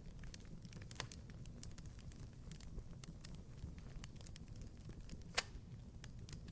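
Wood fire in a fireplace crackling: irregular sharp pops and snaps over a low steady rumble, with one louder pop about five seconds in.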